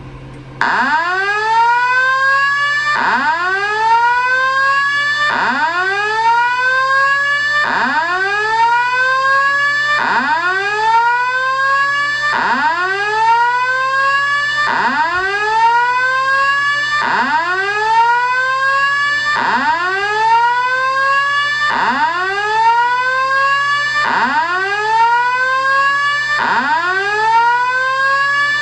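Simplex 4100U/ES voice-evac slow whoop tone sounding through a Simplex fire alarm speaker: about twelve loud rising sweeps, one every two and a half seconds or so, between cycles of the evacuation message.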